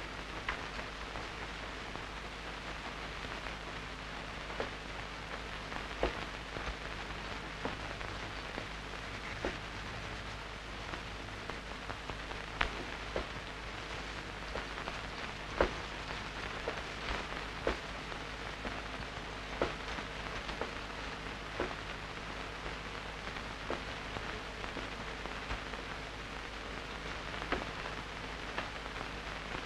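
Steady hiss with scattered irregular crackles and clicks over a faint low hum: the surface noise of an old film's worn soundtrack.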